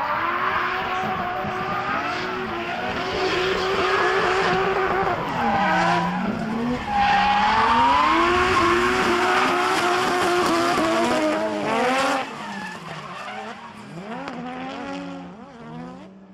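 Drift cars sliding through a corner: engines held at high revs, their pitch rising and falling with the throttle, over the screech of tyres. About two-thirds of the way through the sound drops suddenly to quieter, more distant engine revving.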